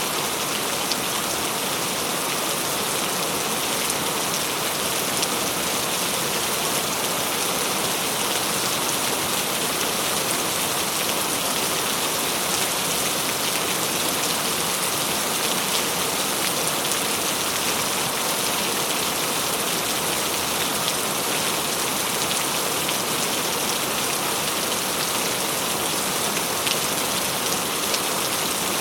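Heavy rain falling steadily, an even hiss of drops with faint drop ticks throughout.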